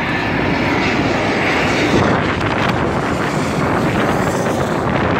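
Twin-engine jet airliner passing low overhead: a loud, steady rush of jet-engine noise, with a higher whine that swells a second or two in.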